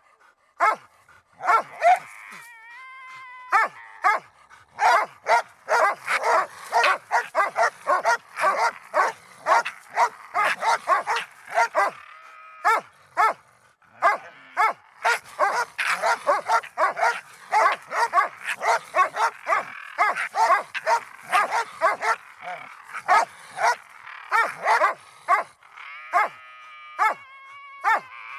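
A young Russo-European Laika barking at a raccoon it has bayed, in a fast run of barks several a second. Short whines break in about two seconds in and again near the end.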